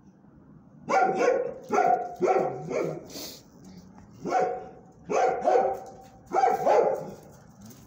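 Dog barking: about ten sharp barks in quick groups of two or three, starting about a second in.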